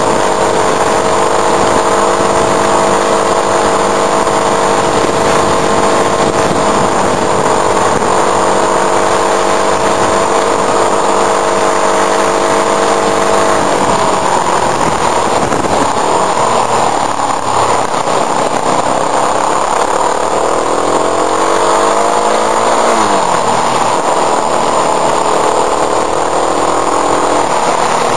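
Motorcycle engine running under way uphill, with rushing wind noise over the mirror-mounted camera. The engine note holds steady, drops about halfway through, then climbs and falls back around two-thirds of the way in before settling again and dropping near the end.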